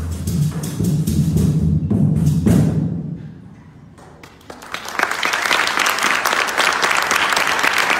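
A choir ending a song on a held chord over percussion beats, cut off about three seconds in; after a short quiet moment the audience starts applauding.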